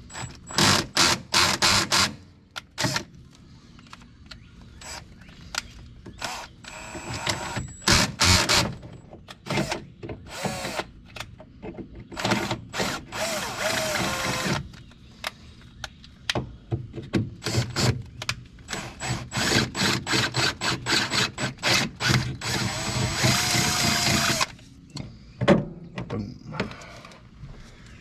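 Power drill with a 9/32-inch bit enlarging stud holes in a car's sheet-metal firewall, run in repeated short bursts with two longer runs, one near the middle and one near the end.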